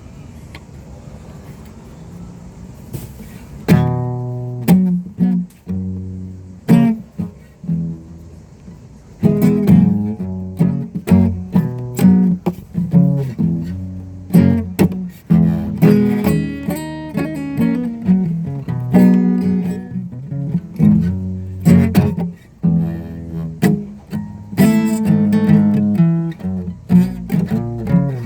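Guitar being plucked: a steady run of picked notes and chords, each note ringing and decaying, starting a few seconds in after a short stretch of low steady noise.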